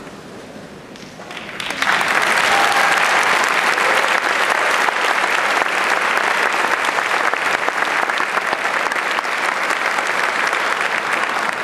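Concert audience applauding as the conductor walks onto the stage, swelling to full strength about two seconds in, holding steady, and starting to die away at the very end.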